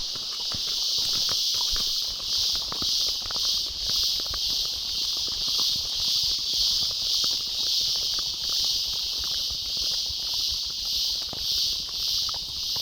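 A rainforest insect chorus buzzing loudly and steadily, swelling and fading about twice a second, with horses' hooves clip-clopping on the trail underneath.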